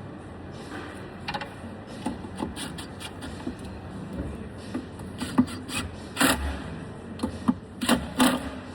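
Wooden drawer and screws being handled as a drawer front is lined up and fastened from inside: scattered light knocks, rubs and scrapes, with several louder knocks in the last few seconds.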